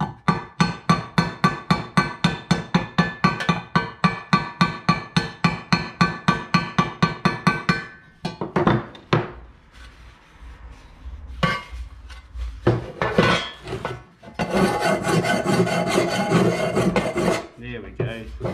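Hammer tapping a small sheet-steel panel over a steel block, quick ringing metal-on-metal blows about four a second for roughly eight seconds, knocking a low spot back out of the metal. After a few scattered knocks and handling sounds, a flat file rasps across the steel for a few seconds near the end.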